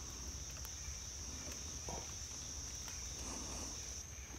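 Steady high-pitched insect chorus. A faint click about two seconds in and a soft rustle a little after three seconds.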